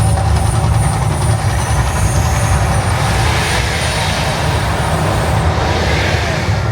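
The Mirage volcano eruption show: a loud, steady deep rumble with a broad hissing rush of fire effects that swells in the middle and eases near the end.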